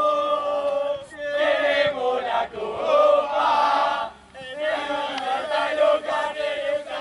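A group of voices chanting together, with a short break about four seconds in.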